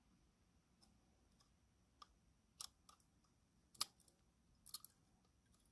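Near silence with a handful of faint, short clicks: a small screwdriver turning a screw into a plastic model-locomotive chassis, and the parts knocking lightly in the hand.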